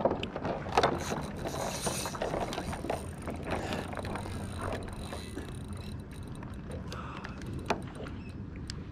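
Irregular clicks and knocks of rod, reel and gear being handled on a plastic fishing kayak while playing a hooked fish, over a steady low rumble.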